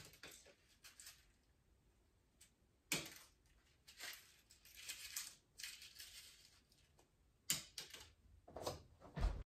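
Balls of crumpled notebook paper tossed onto a wooden countertop, landing with light taps about three seconds in and again about seven and a half seconds in, with soft paper rustling between. A heavier bump comes near the end.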